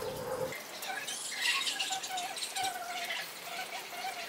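Small birds chirping and squeaking in quick, high twitters, with a faint wavering tone underneath.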